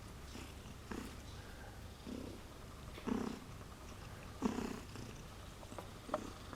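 Domestic cat purring steadily, with a louder swell every second or so.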